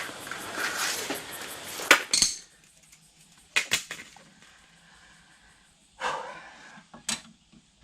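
Metal tools and parts being handled during hand work on a car's rear suspension: scraping and rustling for about two seconds, then a few separate sharp metallic clinks and a short scrape.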